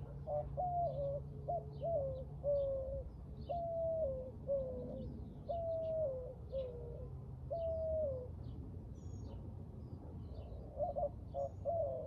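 A dove cooing: a run of about ten coos, each a held note that drops at its end, then a quicker cluster of short coos near the end. Small birds chirp faintly in the background.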